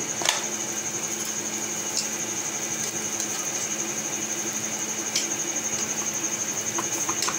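A steady machine hum with a constant high whine, under a few light clicks of metal tongs against the non-stick frying pan as the paratha is turned over.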